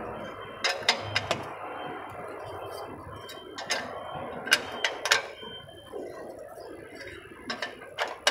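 Ring spanner with a steel pipe extension clinking on a suspension adjustment bolt as the bolt is tightened to lock in the alignment setting: a dozen or so sharp metallic clicks at irregular intervals, a cluster about a second in and more toward the middle and end, over a steady background noise.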